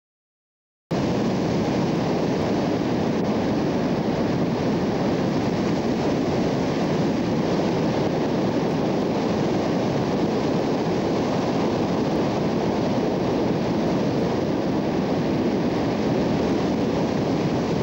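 Wind rushing over a camcorder microphone in flight alongside a paraglider: a loud, steady rush of noise that starts suddenly about a second in and cuts off at the end.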